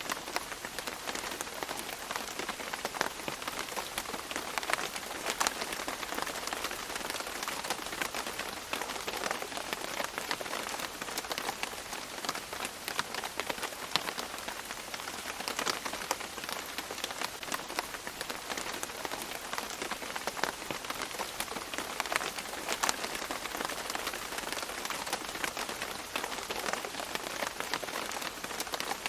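Steady rain falling on leaves, with many separate drops pattering and dripping over a continuous hiss.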